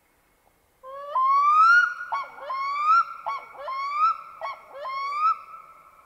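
Black-throated loon giving its typical haunting, wailing call: a low note leaping up, then four repeated phrases, each a short quick note followed by a long rising wail, the last one fading slowly near the end.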